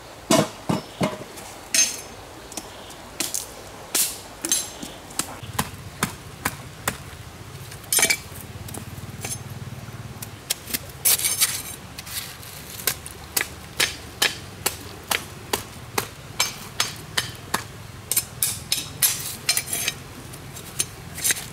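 Knife or machete blade striking wooden stakes: a run of sharp knocks, irregular at first, then a steady beat of about one and a half knocks a second.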